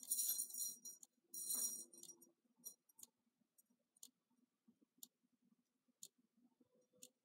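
Thin metal necklace chain and pendant jingling and rustling as fingers work at it: two short bursts in the first two seconds, then only faint light clicks about once a second.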